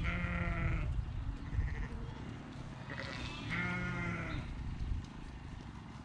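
A mob of Dohne–White Suffolk lambs bleating: two long bleats, one at the start and one about three and a half seconds in, with a shorter call between them. A low rumble underlies the calls and drops away about five seconds in.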